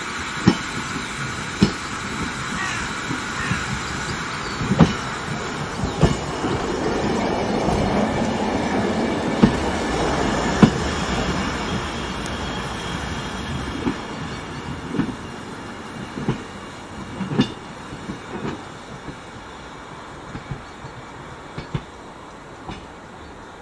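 A short goods train of wagons and a brake van rolling past at low speed, wheels clicking irregularly over rail joints with a high squeal in the first few seconds. The rolling noise builds to its loudest about eight to ten seconds in, then fades as the brake van draws away.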